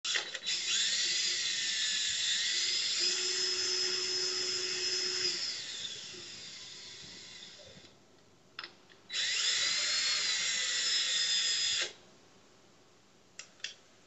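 A high-pitched whine like a small power tool's motor, its pitch gliding up and down. It fades out after about six seconds, comes back for about three seconds and cuts off sharply, and a couple of short clicks follow near the end.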